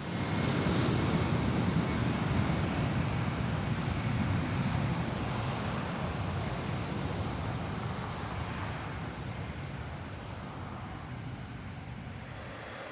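Jet airliner engines roaring with an even, low rush of noise. The roar starts suddenly, is loudest in the first couple of seconds, and then slowly fades.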